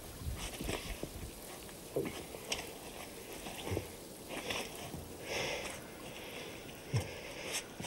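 Close, quiet sounds of a couple kissing and embracing on bare rock: clothing rustling, soft breaths and scattered small clicks.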